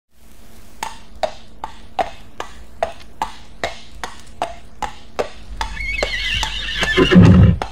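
Horse sound effect: an even clip-clop of hoofbeats, about two and a half a second, then a horse whinnying in the last couple of seconds, ending in a loud low burst.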